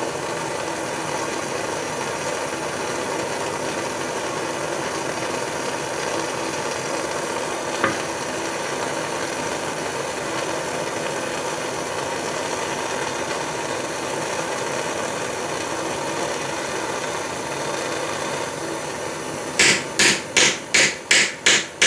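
Propane torch flame running with a steady hiss as it heats a horseshoe nail. Near the end, a cross peen hammer starts striking the hot nail head on a small steel stake anvil, about three even blows a second.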